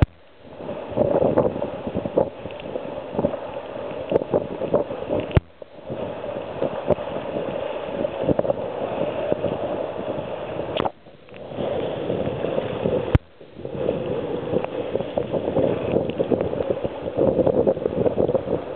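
Wind buffeting the microphone over the rush of water along the hull of a heeled sailing yacht beating to windward in strong wind. The sound cuts out abruptly for a moment a few times.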